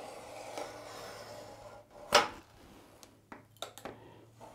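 Utility knife scoring the laminate coating of a worktop along a metal straightedge: a faint scratching draw, then one sharper scrape about two seconds in, followed by a few light clicks. The scoring is done so that the coating won't chip out when the board is sawn.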